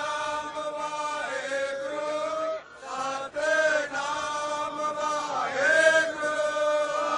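A group of voices chanting in unison in long held notes, with a brief break between phrases about two and a half seconds in.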